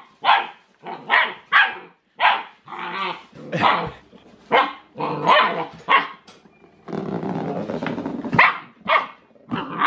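Eight-week-old German shepherd puppy barking at a dryer ball: a dozen or so short barks, quick and separate. From about two-thirds of the way in comes a continuous growl, with a few more barks over it.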